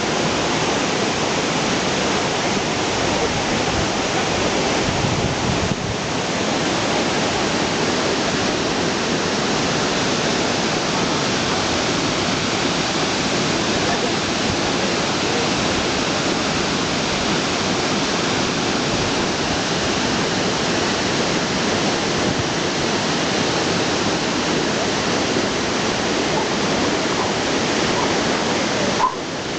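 Millaa Millaa Falls, a waterfall, rushing steadily: an even, unbroken wash of falling water.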